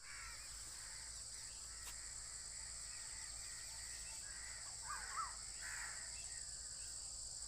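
Crows cawing a few times against a steady high drone of insects, with two short, sharp notes from another bird about five seconds in.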